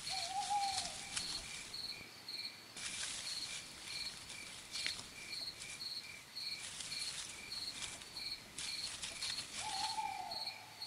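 Night insects: crickets chirping in a steady, evenly pulsed rhythm throughout, with several hissing, buzzing stretches a second or two long. A short, slightly falling lower call sounds at the very start and again near the end.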